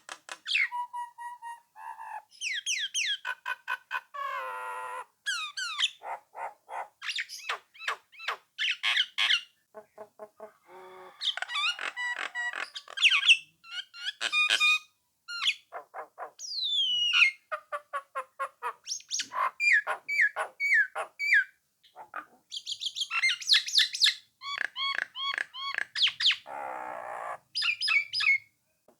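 Nias hill myna singing and chattering: a varied run of loud whistles, rapid series of short clipped notes and sweeping rising and falling calls, broken by short pauses, with a harsher, lower call near the end.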